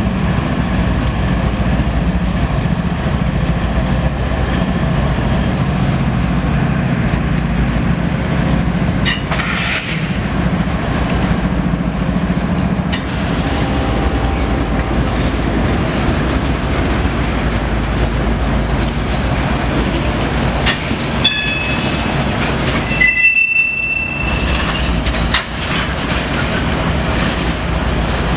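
A freight train of covered hopper cars rolling past close by: a steady rumble with wheels clicking over the rail joints. The trailing GE ES44DC locomotive's diesel engine is heard in the first few seconds, then fades as the cars follow. Near the end there is a brief high wheel squeal.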